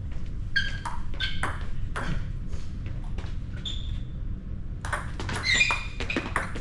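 Table tennis rally: the celluloid-type ball clicking off bats and the table in quick succession, each hit with a short high ring. A denser run of clicks comes from about five seconds in.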